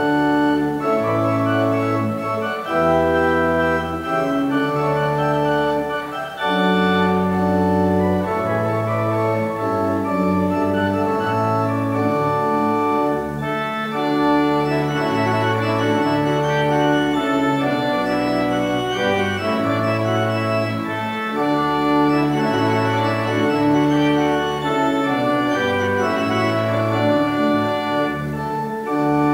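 Organ playing held chords, with the bass note moving about every second or two.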